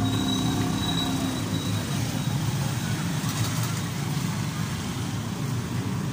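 Motorbike engine running steadily while moving through slow street traffic, with other scooters and tricycles passing close by.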